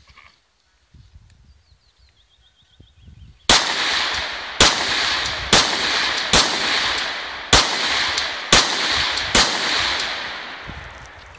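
Rifle fired seven times at a steady pace of about one shot a second, starting about three and a half seconds in, each shot trailing off in a long echo.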